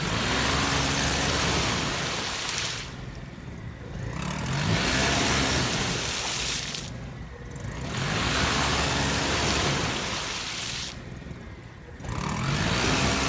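A VW Passat 4motion's engine revs hard in about four surges, each rising and falling in pitch, with wheels spinning in mud on each surge. The car is being rocked back and forth to free it from being stuck in mud.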